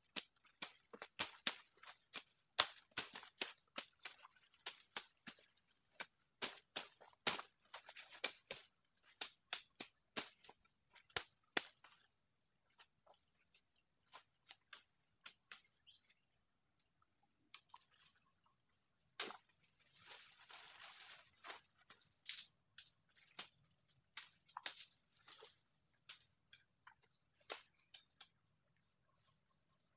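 Steady high-pitched drone of an insect chorus, with frequent sharp snaps, cracks and rustles of stems and twigs as undergrowth is pulled and broken by hand to clear a spot. The snaps come thick and fast at first and grow sparse later.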